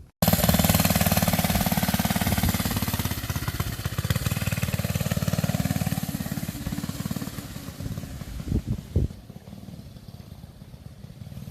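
Single-cylinder Briggs & Stratton 80202 engine of a 1966 Taco 44 mini bike running with a rapid even beat, cutting in suddenly and then growing gradually fainter. Two short thumps come about eight and a half and nine seconds in.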